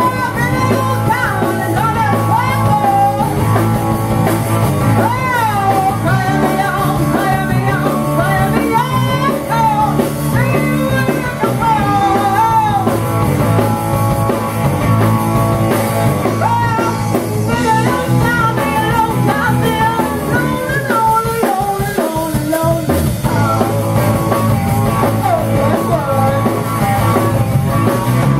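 Live rock and roll band playing: a woman singing over electric guitar, electric bass and a Gretsch drum kit.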